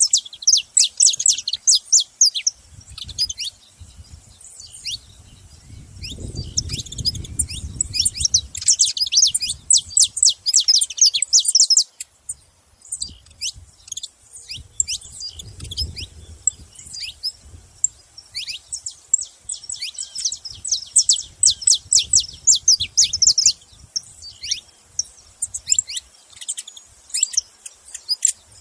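Saffron finch (canário-da-terra) calling and singing in long bursts of rapid high chirps, with sparser notes in between.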